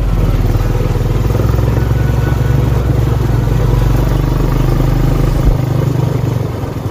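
Manco Deuce go-kart's small engine running steadily and strong.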